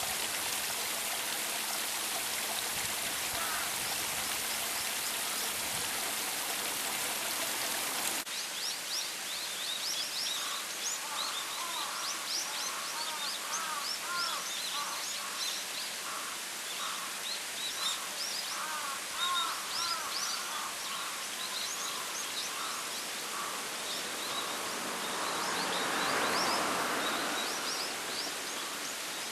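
Water of a spring snowmelt waterfall rushing and splashing steadily. About eight seconds in the sound cuts to a quieter steady hiss with many small birds chirping, and a swell of rushing noise rises and fades near the end.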